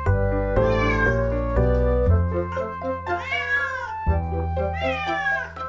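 A wet long-haired cat meowing three times in drawn-out, wavering complaints while being bathed, over background music with a steady bass line.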